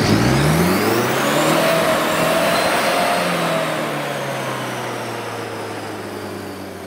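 Off-road 4x4's engine revved from the open engine bay: the pitch climbs over the first second or so, then holds at high revs and slowly sags as the sound fades away.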